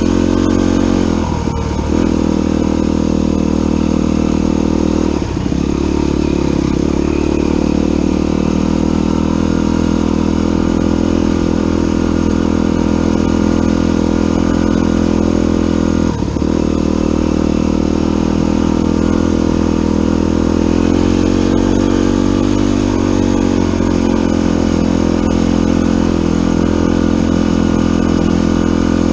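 Dirt bike engine running steadily under throttle along a trail, its pitch dropping briefly three times.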